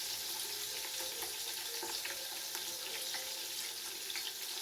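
Onions frying in hot cooking oil in a pot: a steady sizzle with many small crackles.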